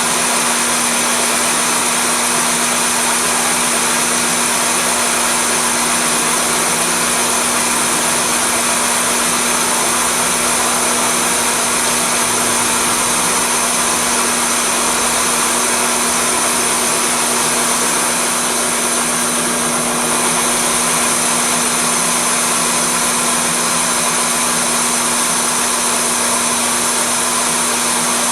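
Drill press boring a 1-inch hollow core bit down through oil-well core rock under a stream of lubricating water: a steady motor hum with one constant low tone over a wide grinding hiss.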